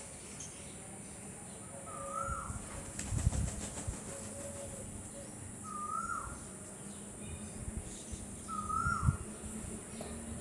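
Bird-like chirping: a short rising-then-falling call repeated every two to three seconds, with a couple of low thumps in between.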